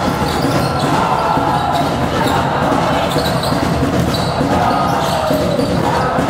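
A basketball bouncing on a hall floor, with voices around it.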